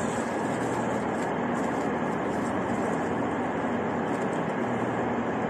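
Steady rumble and hiss of a railway station hall, with no single sound standing out.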